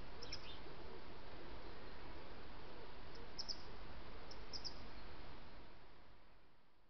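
A few brief, high bird chirps in small clusters over a steady background hiss, the whole fading away over the last second and a half.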